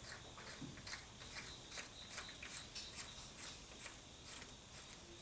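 Faint, irregular metallic clicks, a few per second, as a thread-repair insert installer is turned by hand into a cast iron block, running the insert in so that it spreads at the bottom and locks in place.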